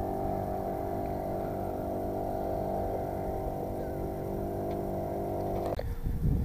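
Engine running steadily at an even speed, cutting off abruptly near the end.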